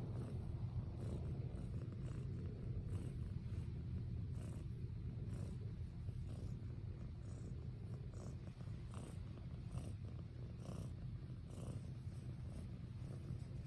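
Domestic cat purring steadily while being stroked, a low continuous purr.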